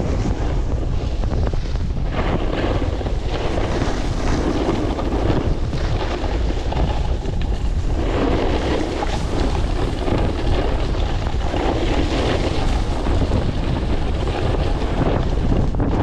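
Strong wind buffeting the microphone, steady and loud, swelling and easing every few seconds.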